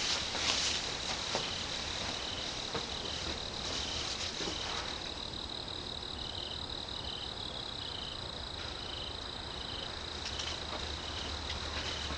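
Insects chirping: a steady high trill, with a second chirp pulsing about twice a second.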